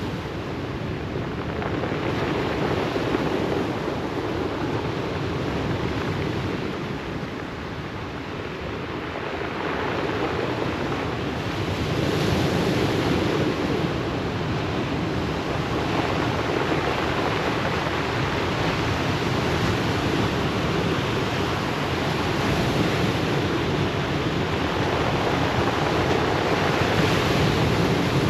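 Ocean surf breaking and washing up a pebble beach, a continuous rush that swells and eases in slow surges every several seconds.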